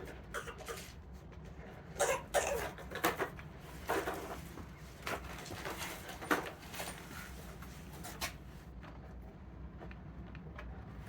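Scattered plastic clicks and knocks as an RC car's body shell is handled and pressed down over its mounting posts, with a low steady hum underneath.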